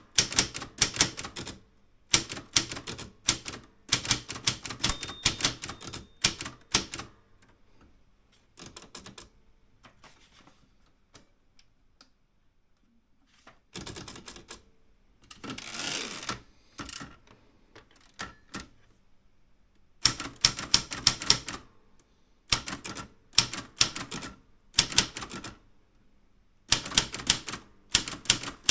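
Typewriter being typed on in quick runs of sharp key strikes. Around the middle the typing thins out and nearly stops, with a longer, noisier sound, before brisk typing resumes.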